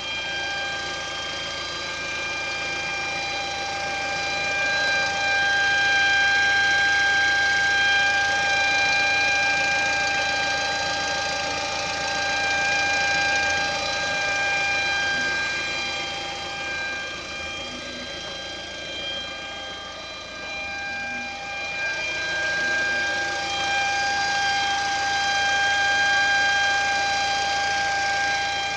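Lada Vesta engine idling with a steady high-pitched whistle held on one pitch. The whistle is a fault that the owner cured by replacing parts fitted onto the engine's vertical nipple fittings.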